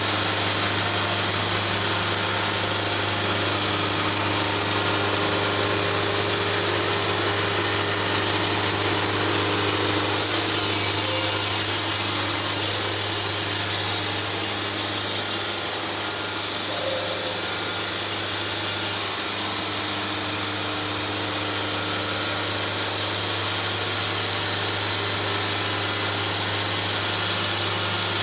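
Sawmill running steadily while cutting through a log: a steady engine hum under a loud hiss from the blade and flying sawdust, easing slightly about two-thirds of the way through.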